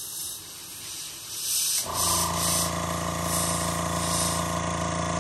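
Airbrush spraying paint in short hisses through a stencil. About two seconds in, an air compressor switches on and runs with a steady hum, the loudest sound from then on.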